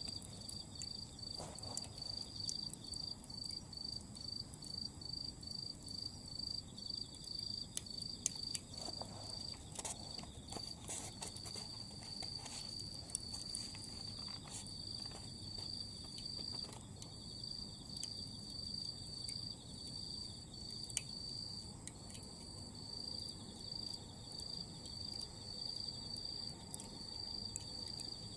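Autumn crickets chirping in a high, pulsing rhythm, with scattered sharp pops and crackles from Iwate kiri-zumi hardwood charcoal burning down to glowing embers.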